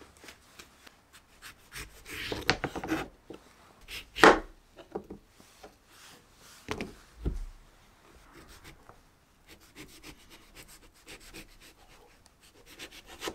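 A paring knife cutting through the thick peel of an amanatsu summer orange on a cutting board. The top and bottom are cut off, with a sharp knock of the blade on the board about four seconds in and two duller thuds around seven seconds. After that comes quieter scraping as the peel is shaved off along the fruit.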